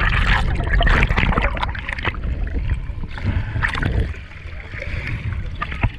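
Water splashing and sloshing in irregular bursts over a low rumble of wind on the microphone.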